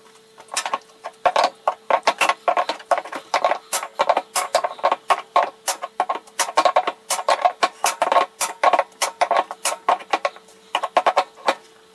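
Quick, irregular clicking, several clicks a second, as a threaded 90-degree pipe fitting is turned in with a wrench, over a faint steady hum.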